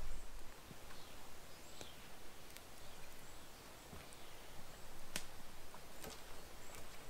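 Faint outdoor background with a handful of short, sharp clicks scattered through it, the clearest about five seconds in, and a faint high chirp near two seconds.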